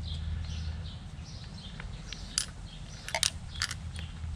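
Light metallic clicks and clinks as a 904 automatic transmission valve body with its shift linkage is turned over and handled, a handful of sharp clicks coming in the second half over a steady low hum.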